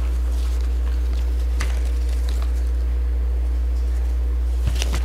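Steady low electrical hum in the microphone's sound, with faint steady higher tones over it and a couple of faint clicks, one early and one near the end, while the lectern speaker is silent.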